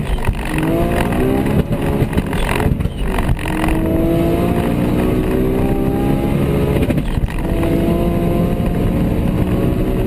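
Onboard engine sound of a Bugatti Chiron and a 1400 hp Toyota Supra accelerating flat out at high speed. The engine pitch rises steadily and drops back at gear changes, once about three seconds in and again about seven seconds in.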